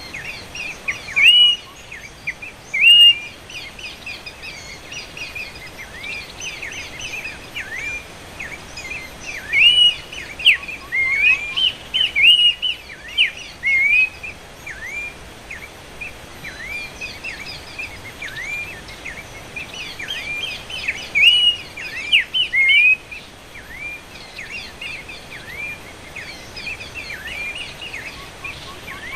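Horsfield's babblers (pelanduk semak) calling: strings of short, quick, hooked notes, repeated over and over, with louder close calls about a second in, in a run around the middle and again about two-thirds of the way through, over steady outdoor background noise.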